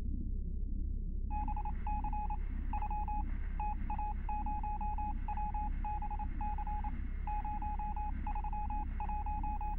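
Electronic beep tone keyed on and off in short and long pulses, like Morse code, over a steady low rumble. The beeps start about a second in.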